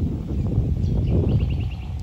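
Low rumbling noise, with a quick run of about six short, high chirps from a small bird about a second in.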